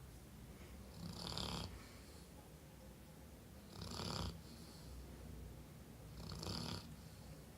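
A sleeping Labrador retriever snoring: three snores about two and a half seconds apart.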